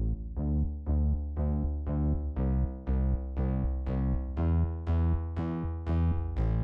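Background music: electronic synthesizer notes in a steady repeating rhythm over a sustained bass.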